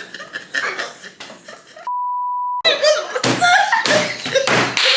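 A steady censor bleep, one pure tone held for about two-thirds of a second about two seconds in, with all other sound cut out under it; voices and chatter before and after.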